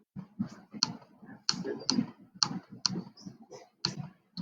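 A run of short, sharp clicks at an irregular pace, about two or three a second, like keys or buttons being pressed.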